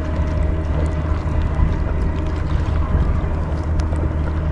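A passing motorboat's engine drones steadily, with water sloshing as its wake washes against the float tube.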